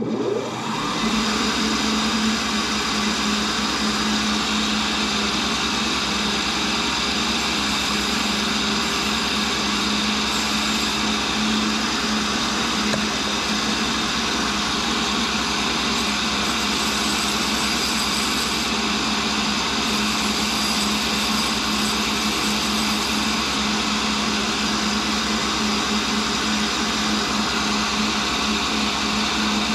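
Cincinnati tool and cutter grinder's spindle motor starting up and then running steadily, the grinding wheel spinning with a constant hum and a high hiss. It comes up to speed in about the first second.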